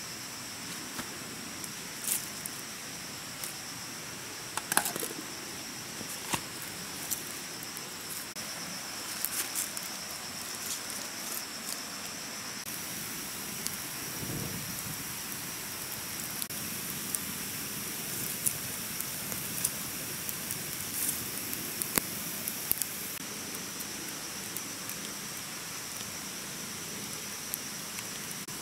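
Small wood campfire of dry twigs crackling: scattered snaps and pops, irregular and a few seconds apart, over a steady high hiss.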